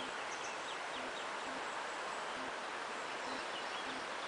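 Outdoor gorge ambience: a steady rushing noise with small birds chirping briefly now and then.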